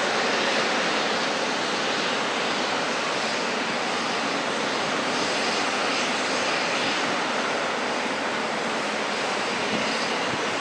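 Boeing 777-300ER's GE90-115B jet engines running at taxi power, a steady, even hiss with no change in pitch.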